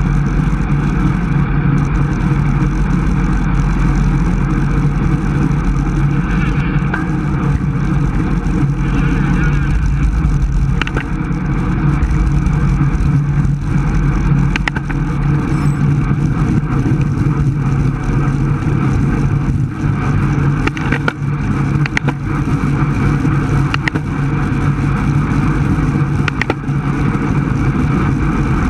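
Steady wind rush and rumble on a bike-mounted camera's microphone as a road bike rides at about 26 to 30 mph, with tyre noise on the asphalt and a few faint ticks.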